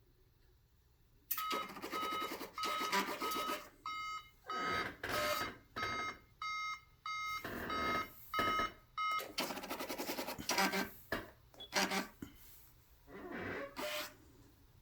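Alarm monitoring equipment sounding short electronic beeps at one steady pitch as alarm and trouble events come in. Bursts of buzzing, rasping mechanical noise alternate with the beeps.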